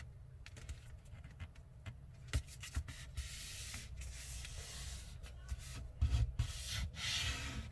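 A sheet of paper rustling and rubbing as hands fold it and press a crease flat, with a few short clicks of the paper.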